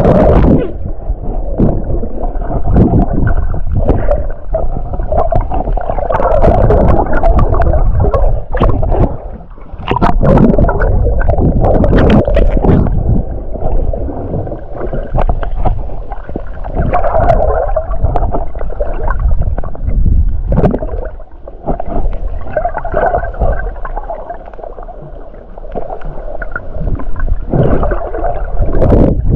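Muffled underwater gurgling and water rush around a swimmer diving, heard through a submerged camera, swelling and easing irregularly.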